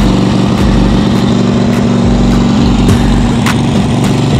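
Toro ProLine 36-inch walk-behind mower's V-twin engine running steadily, with a faint click about every half second.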